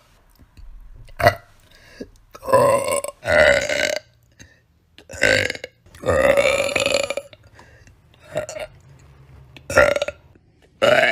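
A woman burping repeatedly: about eight separate burps with short pauses between them, mostly brief, with one long drawn-out burp of about a second near the middle.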